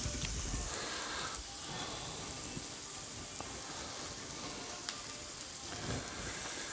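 Rice and vegetables frying on a Blackstone flat-top griddle, a steady sizzle with a few faint clicks.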